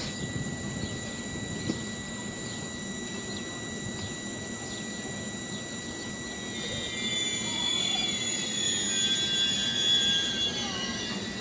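Intercity train's coach wheels squealing as the train starts moving slowly out of the station: several high, wavering squeals set in about two-thirds of the way through and grow louder. A steady high whine sounds underneath before the squealing.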